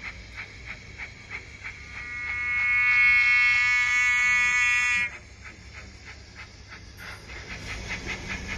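Hornby OO gauge Rocket model's DCC sound decoder playing steam chuffs through its small speaker, about three a second. About two seconds in, the new custom horn, recorded from a trumpet, swells into one held note, the loudest sound, and cuts off suddenly about five seconds in. The chuffs grow louder near the end.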